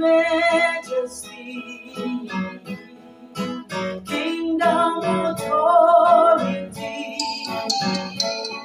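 A woman singing a slow worship song while strumming chords on a classical guitar.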